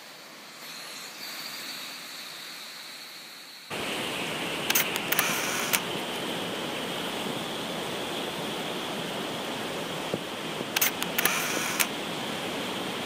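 Steady rushing noise that turns louder and fuller about four seconds in, with two short spells of crackling.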